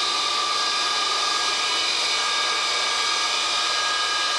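Boeing KC-135A's Pratt & Whitney J57 turbojet engines running steadily on the ground, heard from inside the cockpit: an even rushing noise with several steady high whining tones.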